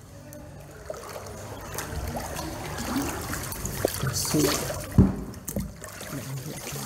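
Muddy floodwater sloshing and splashing as someone moves through a flooded room, with a few knocks and one sharp thump about five seconds in.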